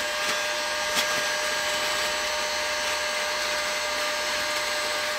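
Steady whooshing of a running blower with a faint hum, and one light tap about a second in.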